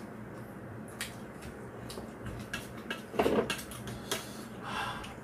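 Chopsticks and a spoon clicking against ceramic bowls and a stew pan while eating, a few light clicks with a louder, brief clatter about three seconds in.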